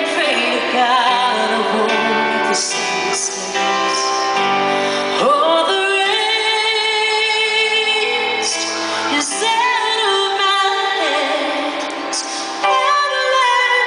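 A woman singing a slow ballad live with her band, holding long notes with vibrato.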